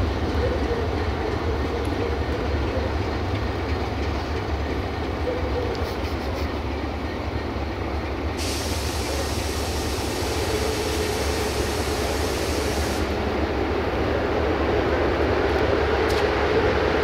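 Diesel locomotive idling, a steady low rumble and hum. About halfway through, a high hiss starts suddenly and cuts off about four and a half seconds later.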